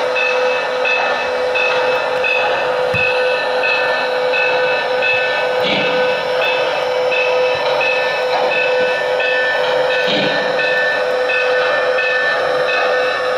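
Model steam locomotive's sound system at idle: a steady steam hiss over a constant hum, with a short high tick-like tone repeating about every two-thirds of a second and a soft low whoosh every four seconds or so.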